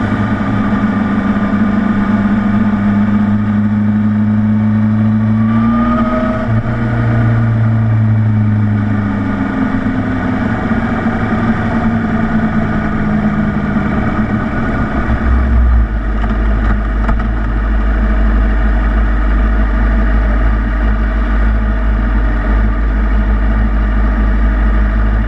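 Honda CBR600RR's inline-four engine running at low speed in traffic, with a brief rise in revs about six seconds in, then settling to a steady low note for the second half.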